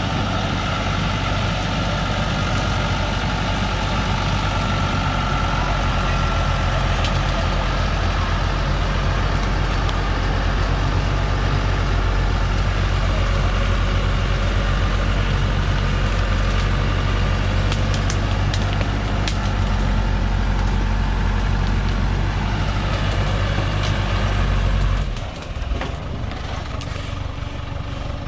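Heavy logging truck's diesel engine working steadily under load as the fully loaded truck crawls up a muddy slope on chained tyres. About 25 seconds in, the engine note drops sharply as the throttle comes off.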